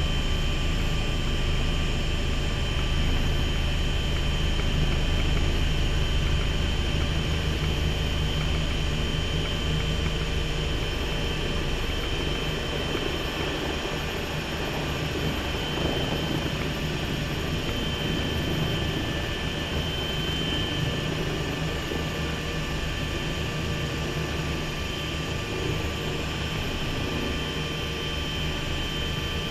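Bell 429 twin-turbine helicopter heard from inside its cockpit on approach to land. A steady high whine runs over a low rumble, and the low end eases off about halfway through.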